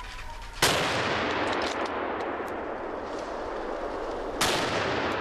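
Two rifle shots about four seconds apart, each followed by a long echoing tail.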